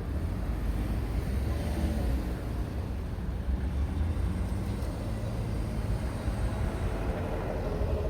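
Road traffic: vehicle engines running with a steady low rumble and a faint engine note that rises and falls.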